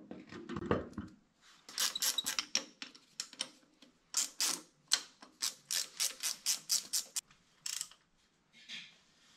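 Ratchet wrench clicking in quick runs of strokes as the starter motor's mounting bolts are run in against a tractor engine block. It follows a few dull knocks of the starter being set into place in the first second.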